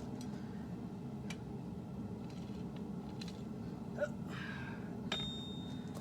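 A steady low workshop hum with a few light clicks, then a sharp tap about five seconds in that rings with a single clear high note for under a second, like steel struck lightly.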